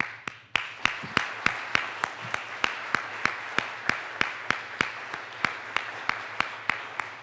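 Audience applause, with one person's hand claps close to the microphone standing out sharply above it at a steady rate of about three a second.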